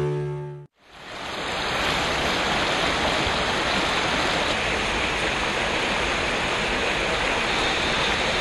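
A short tail of theme music ends, and about a second in the steady rush of a fast-flowing stream fades in and holds.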